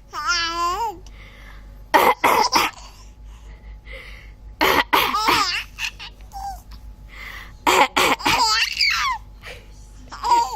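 A baby laughing in squealing giggles in response to a woman's coughs: a few short bursts of coughing, three times, with the baby laughing again after the later ones.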